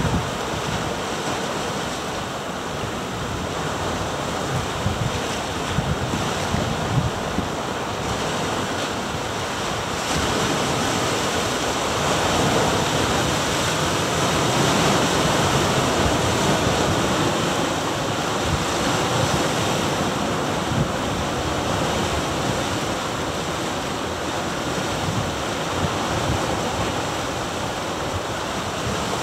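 Ocean surf washing over and around granite rocks at the shore in a continuous roar that swells louder for several seconds about a third of the way in. Wind buffets the microphone with low rumbles in the first several seconds.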